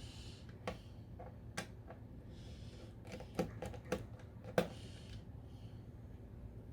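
Light clicks and taps from handling small metal parts, screws and a Torx screwdriver, while a Mac mini is taken apart. There are single clicks early and a quick cluster of them between about three and five seconds in, with a few soft hisses between.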